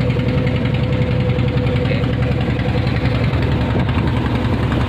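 Small fishing boat's engine running steadily, a loud continuous low chugging with a fast even beat.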